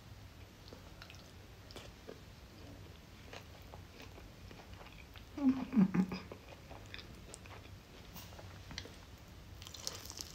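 A person chewing and biting fried potato and honey-glazed chicken, with soft wet mouth clicks and smacks. About halfway through, a brief low hum of the voice with a falling pitch is the loudest sound.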